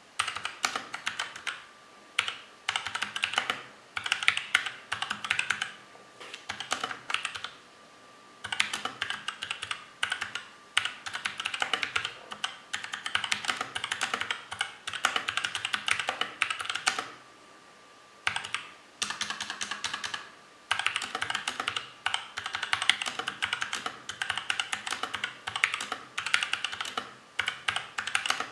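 Typing on a mechanical keyboard with tactile Outemu Sky switches, lubed with Krytox 104 but with springs and stem legs left dry: quick runs of key clacks, broken by a few short pauses.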